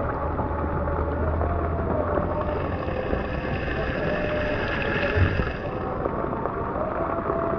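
Swimming-pool water sloshing and splashing around a person moving in it, with wind noise on the microphone and a faint wavering tone underneath.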